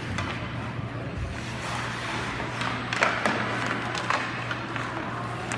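Ice hockey game sounds in a rink under a steady low hum, with a few sharp knocks about three and four seconds in, from sticks and puck.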